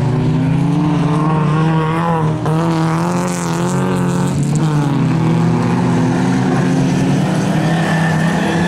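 Engines of several folkrace cars running hard at high revs, their notes overlapping and rising and falling as the cars race around the dirt track.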